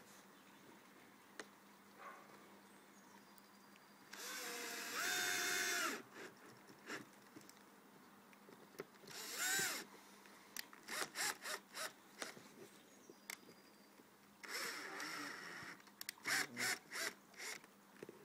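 Electric drill whirring in bursts: a few runs of one to two seconds, with strings of short stop-start pulses between them.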